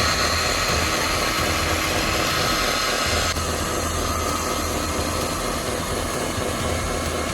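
Electric motors and gearboxes of radio-controlled construction models running with a steady high whine over a low rumble; one whining tone stops about three seconds in.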